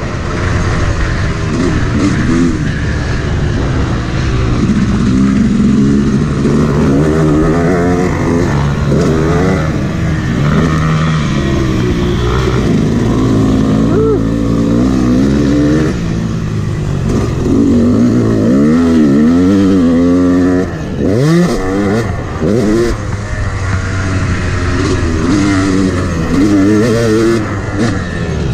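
Yamaha YZ250 two-stroke dirt bike engine heard from the rider's seat, revving up and dropping back over and over as the throttle is worked along the motocross track. Its pitch climbs and falls repeatedly, with a brief drop in loudness about two-thirds of the way through.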